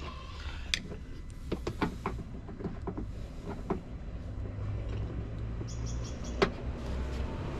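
Scattered light clicks and knocks of hand work on plastic car trim and its clips at the wheel arch, over a steady low rumble.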